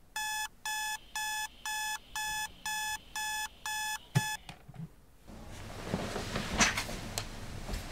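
TEAC clock-radio alarm beeping, about two even electronic beeps a second, nine in all, cut off with a click about four seconds in as it is switched off. Then rustling with a few soft knocks.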